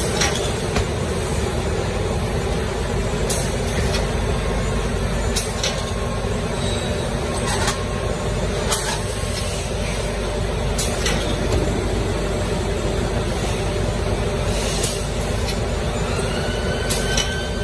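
Diaper packaging-line machinery and conveyors running with a steady industrial din. A short, sharp clack or air hiss comes every couple of seconds, and near the end a whine rises and then holds.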